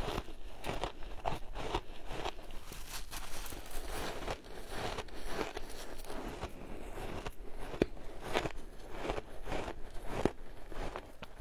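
Shaved ice being bitten and chewed: an irregular run of crisp crunches, a few each second.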